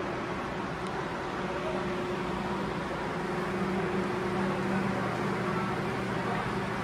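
Steady ventilation hum and hiss, with a low droning tone under an even rush of air.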